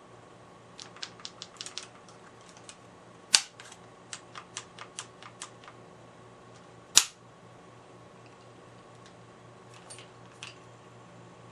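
Maruzen Ingram M11 gas blowback airsoft submachine gun: a run of light mechanical clicks from handling the gun, with two single loud sharp shots, one about three seconds in and one about seven seconds in.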